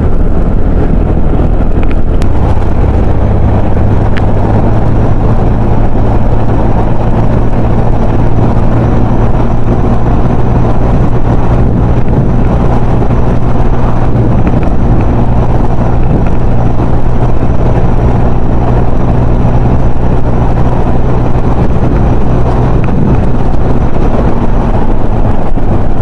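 Motorcycle engine running steadily at speed, with wind rushing over the microphone. The engine note holds even through most of it and changes near the end.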